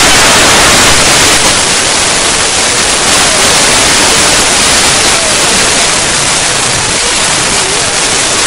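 Loud, steady rush of a river in flood.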